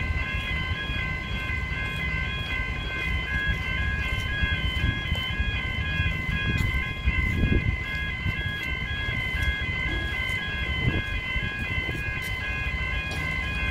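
Railway level crossing warning bells ringing continuously, a rapid, evenly repeating electronic ding, over a low rumble that swells about halfway through.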